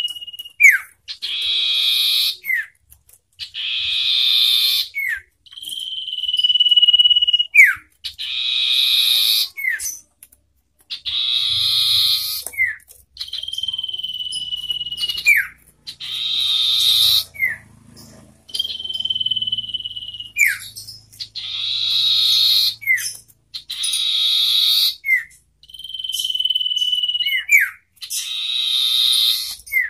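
Common ioras calling at each other in a contest of voices: a few long, level whistles, each ending in a quick downward drop, among repeated harsh rasping calls about a second and a half long.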